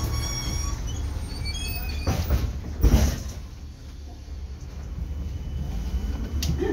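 LAZ E183A1 trolleybus pulling away, heard inside the cabin: a steady low rumble with a high electric whine from the traction drive rising in pitch over the first two seconds. Two heavy thumps follow, a little after two seconds and near three seconds in, the second one the loudest.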